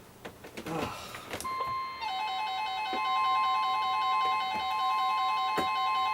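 Weather radio alert: a steady NOAA Weather Radio warning alarm tone of about 1050 Hz starts about a second and a half in. Half a second later a receiver's alarm joins it, warbling rapidly between two pitches. The tone announces a flood warning broadcast. A few faint clicks come before it.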